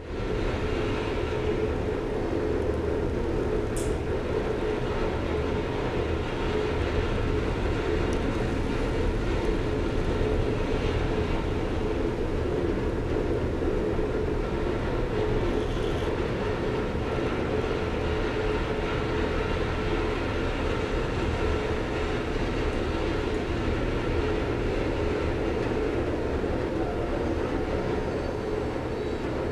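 A steady low rumble with a faint held hum.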